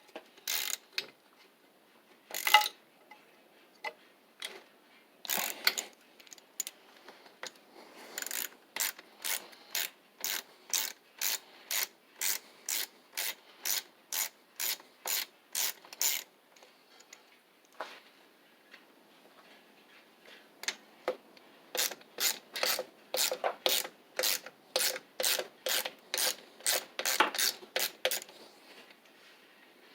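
Hand socket ratchet backing out the cylinder head bolts of a Briggs & Stratton WMB engine: a few separate knocks, then two long runs of ratchet strokes clicking about twice a second, with a pause between.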